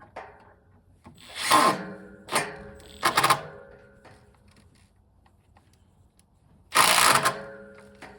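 Power drill running in four short bursts on screws in wooden fence boards, three close together and a last one after a pause of about three seconds.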